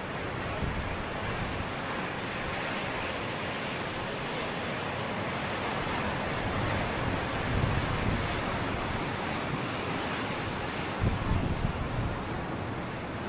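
Steady rush of sea surf, with wind buffeting the microphone in a couple of low gusts in the second half.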